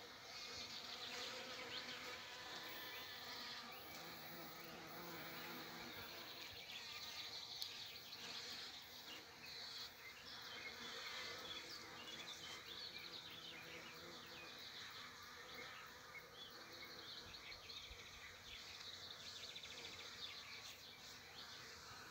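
Bees buzzing as they forage on kiwi blossoms: a faint, steady hum that swells when a bee passes close, about four seconds in and again around thirteen seconds. A single brief knock sounds about a third of the way through.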